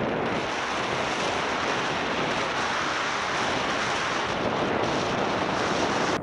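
Steady rush of wind buffeting the camera microphone as an e-mountain bike rides downhill, gathering speed.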